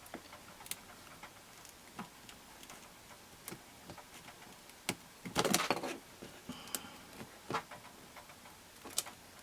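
Scattered small clicks and taps of plastic opening tools prying at the cracked front cover of a 2nd-generation iPod touch, with a short scraping crackle about five and a half seconds in and a sharper click near the end as a clip lets go.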